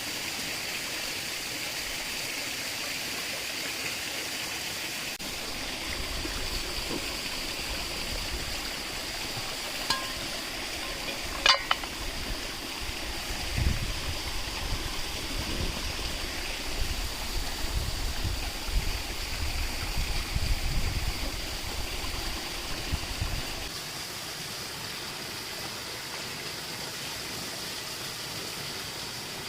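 Steady rushing of a stream, with intermittent low rumbles through the middle and a single sharp click about a third of the way in.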